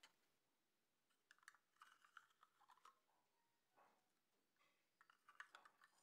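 Faint light clicks and scrapes of a clear plastic spoon against a small glass jar as the jar is handled. They come in two bunches, one from about a second in and another near the end.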